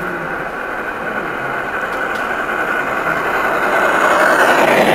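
Large-scale model steam locomotive running toward the track-level microphone and passing it. The steady running noise of its wheels on the rails grows louder, loudest near the end as it goes by.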